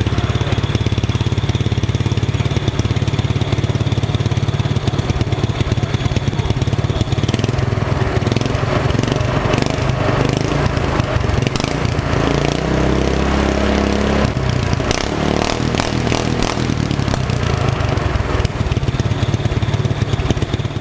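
Small petrol engine of a motorised drift trike running steadily with a fast, even chugging, its speed shifting about two-thirds of the way through. The engine has just been brought back to life.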